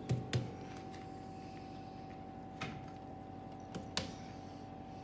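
A few short clicks and knocks, two close together at the start and a couple more later, from hands handling parts in an old Land Rover's engine bay with the engine stopped, over a faint steady hum.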